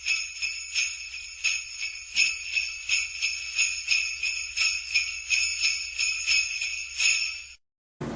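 Sleigh bells shaken in a steady rhythm, about two shakes a second, cutting off suddenly near the end.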